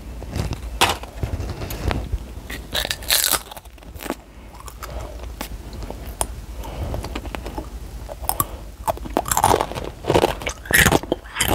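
Sun Chips crunching as a child bites and chews them close to a clip-on microphone, in sharp irregular crunches that come thicker near the end.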